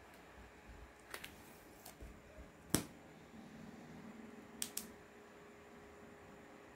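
Bagged comic books being handled and swapped on a wooden table: a few faint clicks and taps of the plastic sleeves and board edges, the sharpest nearly three seconds in and a quick pair about four and a half seconds in.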